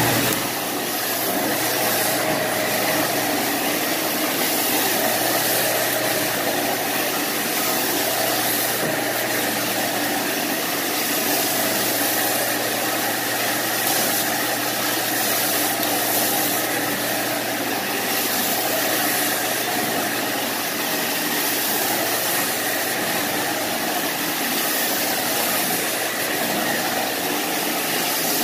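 Carpet-cleaning machine running continuously: a steady motor hum under an even hiss.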